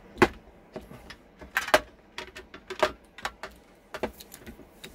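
Hand pop rivet gun being worked on a thin sheet-metal disc: an irregular run of sharp metallic clicks and knocks, the loudest about a second and a half in, as the gun is squeezed and the disc shifts.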